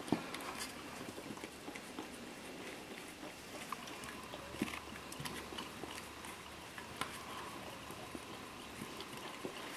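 Bernese mountain dog licking ice cream out of a small cup, with wet lapping and irregular small clicks and knocks as the cup is nosed about on the carpet.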